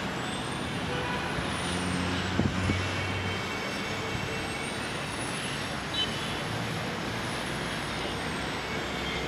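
City traffic noise: a steady wash of passing vehicles, with a deeper engine hum for a couple of seconds and two sharp knocks about two and a half seconds in, and another about six seconds in.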